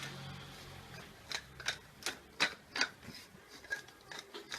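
Sharp, irregular clicking, about two or three clicks a second, as ground black pepper is dispensed into the pot.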